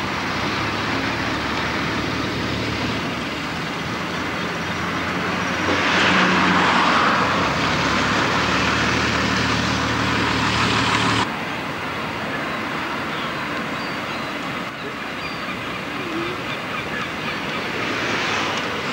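Road traffic with vehicle engines running, a steady hum and noise; it grows louder for several seconds in the middle and cuts off suddenly about eleven seconds in.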